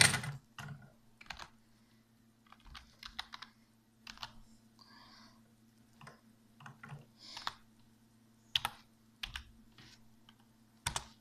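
Light, irregular clicks and taps of typing on a keyboard while searching for a stopwatch, scattered a few at a time, over a faint steady hum.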